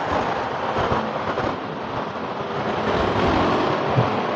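Steady noise of passing vehicle traffic, getting a little louder about three seconds in.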